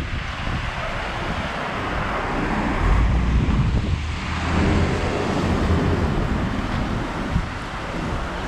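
Wind buffeting the action camera's microphone as a low rumble, over the hiss of traffic on a rain-wet road. The rumble is heaviest about three to five seconds in.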